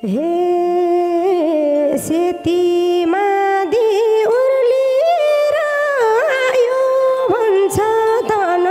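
Nepali dohori folk music: a single melodic line with sliding, ornamented notes and short breaks between phrases, with little percussion, starting abruptly after a brief fade-out.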